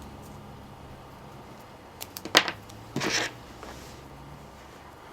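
Small parts and tools handled on a workbench: a few clicks and one sharp tap about two seconds in, then a short rustling scrape a second later, over a faint steady hum.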